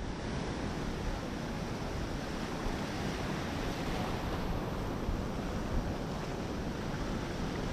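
Surf breaking and white water washing over a rocky reef, a steady rush, with wind buffeting the microphone.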